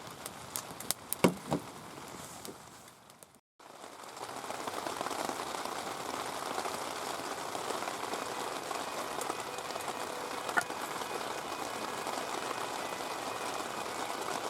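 Heavy rain pouring down steadily. It comes in after a brief dropout about three and a half seconds in; before that there are a few sharp cracks, the loudest about a second in.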